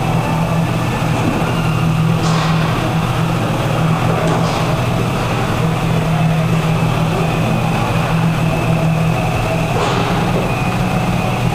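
Indoor roller hockey rink ambience: a steady low hum under an even wash of noise, with a few brief clacks.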